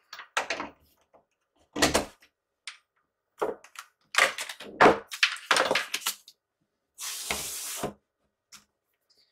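Cardboard packaging being handled on a worktop: a string of knocks, taps and rustles from the box and its inner tray, then a scrape of cardboard sliding that lasts about a second near the end.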